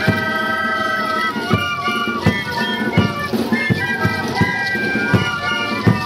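A sikuri ensemble playing sikus (Andean panpipes) together, many breathy held notes overlapping, over a bass drum beating a steady pulse about every 0.7 seconds.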